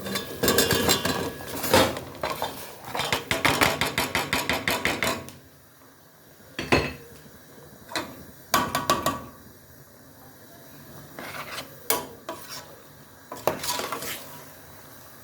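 Kitchen utensils clattering against a cooking pot as washed rice is added: a dense run of clinks and scrapes for about five seconds, then scattered single clinks.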